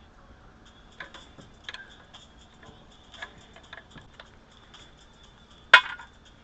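Hand tools, screwdrivers among them, clinking and ticking against each other as they are rummaged through. One loud sharp metal clank comes near the end.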